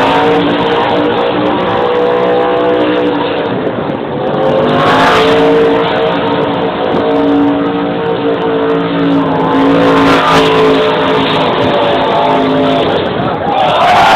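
NASCAR stock car's V8 held at high revs while it spins donuts with the rear tyres smoking. The revs drop briefly about four seconds in and climb back.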